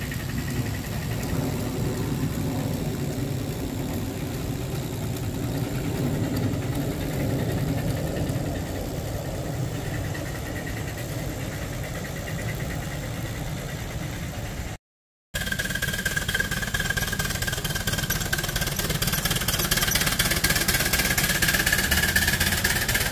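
A 4.75-inch gauge ride-on scale train running past on its track, with a steady mechanical rumble. After a cut about two-thirds of the way through, a steady high whine sounds over a hiss.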